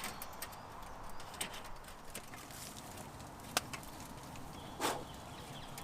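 Light scattered clicks and knocks of camp cooking gear being handled. There is a sharper click about three and a half seconds in and a short thud near five seconds.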